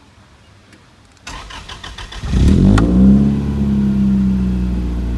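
1999 Toyota Altezza's 3S-GE four-cylinder engine, fitted with a new performance air filter, cranking on the starter for about a second, then catching. It flares up in revs and settles into a steady fast idle.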